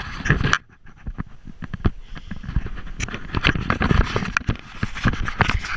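Irregular knocking, scraping and rustling of a handheld action camera being jostled and carried, dense clicks with a short lull about half a second in.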